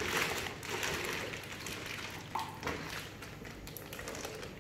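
Thin plastic fish bag crinkling and rustling as it is untied and lifted out of a plastic basin, a dense crackle that is loudest at the start.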